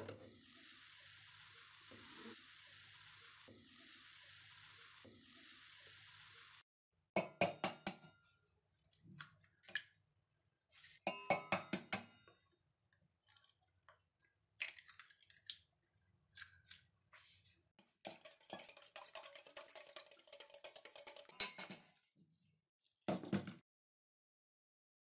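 Kitchen food-preparation sounds: a steady hiss for several seconds, then bursts of rapid clinking and tapping of utensils against dishes, and a single thump near the end.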